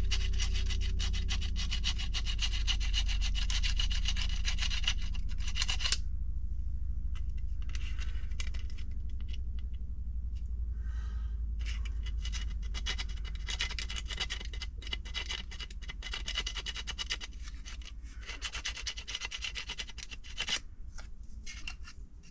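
Fingernail file rubbed quickly back and forth inside a hole in a 3D-printed plastic part, filing it clean, in several spells with short pauses about six seconds in, about ten seconds in, and near the end.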